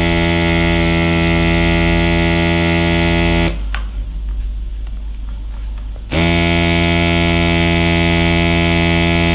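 Small air compressor of an Aerocolor marker airbrush set running with a loud, steady buzz while spraying brown marker ink. It cuts out a few seconds in and starts up again about two and a half seconds later.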